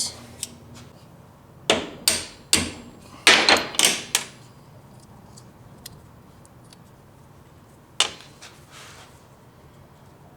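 Small metal hinge parts knocking and clinking as they are handled and set down on a workbench: a few sharp knocks with a short ring, a quick run of them about three to four seconds in, and one last sharp knock near eight seconds.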